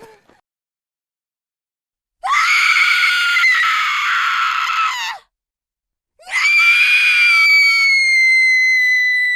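A woman screaming in fear: two long, high-pitched screams, the first about three seconds long starting about two seconds in, the second starting about six seconds in and held at a steady pitch.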